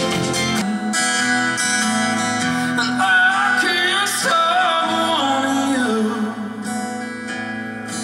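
Live music: a singer strumming an acoustic guitar and singing, backed by a band. The music changes abruptly to a different passage just under a second in.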